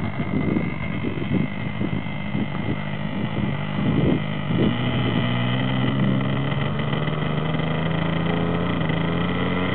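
Plain-bearing OS 60 two-stroke glow engine of a model aircraft running on the ground with a high, buzzing note. It sounds uneven at first and settles into a steady run about halfway through.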